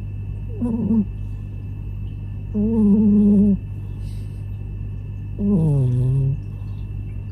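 Munchkin cat snoring loudly in its sleep: three pitched snores about every two and a half seconds, each lasting up to a second, the last one sliding down in pitch.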